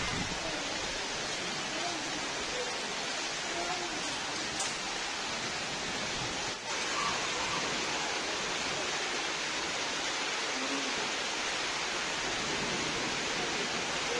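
Steady hiss of rain falling on trees and buildings.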